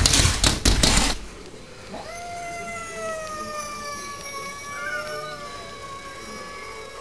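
A cat's long, steady low yowl, a caterwaul starting about two seconds in and held without a break, the threat call of a cat facing down a rival. It is preceded by loud, harsh noisy bursts in the first second.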